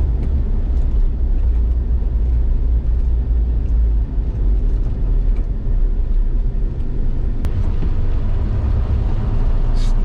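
Jeep Wrangler TJ driving on the road, heard from inside the cab: a steady low rumble of engine and road noise. The rumble includes tire noise from worn, cupped Duratrax mud tires.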